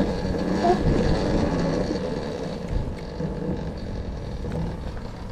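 Talaria Sting electric dirt bike in motion on a short test ride: a faint steady motor whine over wind and tyre noise, slowly easing off.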